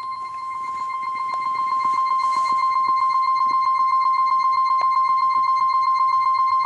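Seiko Disney Mickey Mouse alarm clock sounding its basic electronic alarm beep: one high tone pulsing rapidly, growing louder over the first couple of seconds and then holding steady.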